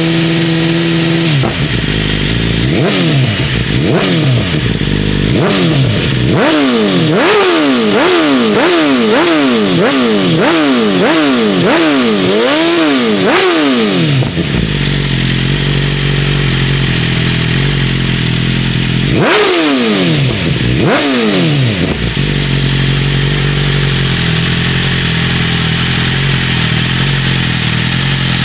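2023 BMW S1000RR's inline-four engine, with an Akrapovic full exhaust, idling and being blipped on the throttle. A few spaced revs are followed by a fast run of about a dozen sharp blips, roughly two a second. It settles back to a steady idle, with two more blips near the middle.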